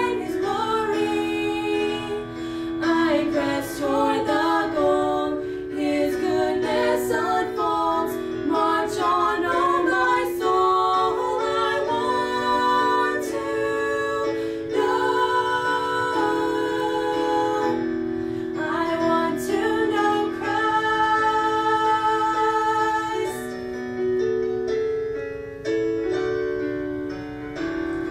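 Two women singing a hymn-like song in two-part harmony over a sustained piano accompaniment. Near the end the voices stop and the piano plays on alone.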